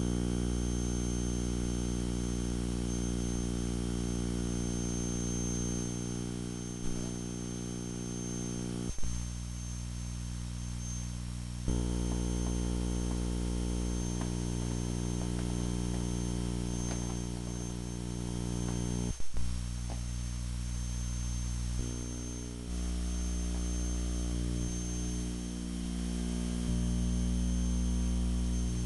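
A steady electrical buzz: a mains-hum drone rich in overtones with a faint high whine above it. It shifts abruptly several times, with a sharp click at two of the shifts.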